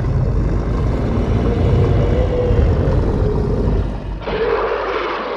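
Low rumbling sound-effect drone, then about four seconds in a sudden harsher werewolf growl sound effect.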